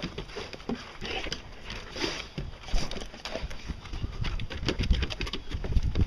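Footsteps and a Labrador's claws on wooden deck stairs, an uneven run of knocks and clicks with low thumps.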